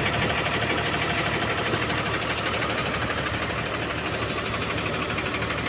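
Heavy diesel truck engine idling steadily, an even rumble that does not change.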